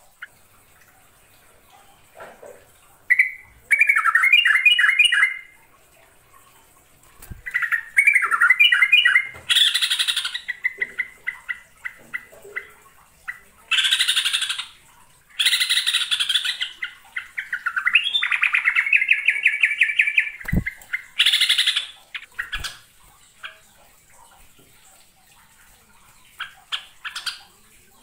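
Caged yellow-vented bulbul singing: loud bursts of rapid, bubbly warbling phrases with pauses between them, tailing off into a few short chips near the end.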